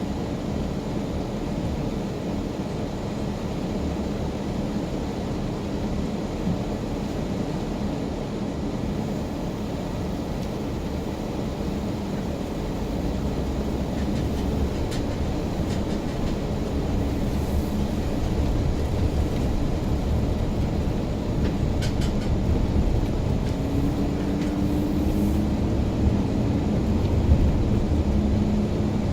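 Car driving: a steady low rumble of engine and road noise, with an engine tone that rises gently near the end.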